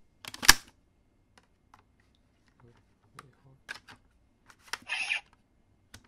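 Plastic clicks and taps from a CSM Dragvisor toy gauntlet being handled as a card is loaded and the visor cover pressed shut: one sharp loud click about half a second in, then lighter clicks and a short rustle near the end.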